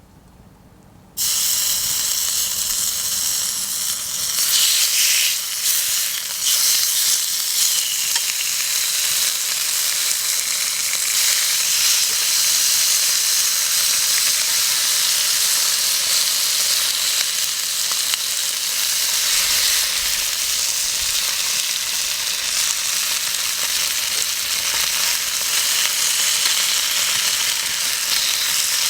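Pre-seasoned meat dropped into a hot, oiled iron frying pan about a second in, then sizzling loudly and steadily as it fries over high heat.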